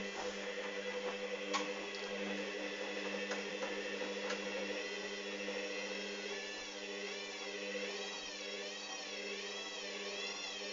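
Hoover Dynamic washing machine's motor whining steadily through a spin, with a few light clicks. From about six seconds in, a higher whine wavers up and down in a regular cycle. The uploader calls this spin dangerously unbalanced.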